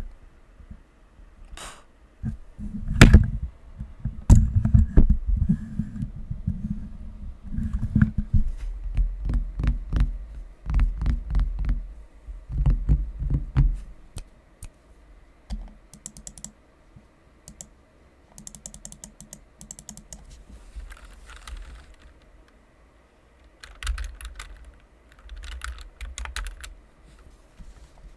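Epomaker SK61 mechanical keyboard with foam-modded case and factory-lubed Gateron optical yellow linear switches being typed on. Fast, dense keystrokes with a deep, low bottom-out fill the first half, then the typing turns lighter and sparser.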